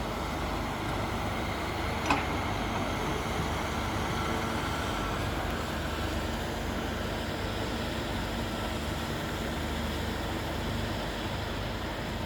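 Heavy diesel machinery running steadily with a low rumble, with one sharp click about two seconds in.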